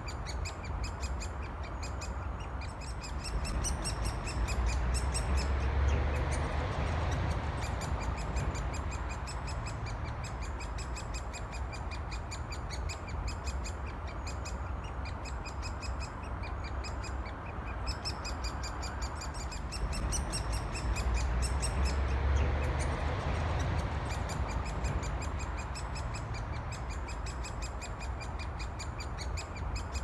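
Great spotted woodpecker chicks calling for food from the nest hole: rapid, high-pitched chattering in long runs with short breaks. Under it runs the steady rumble of busy main-road traffic, which swells twice.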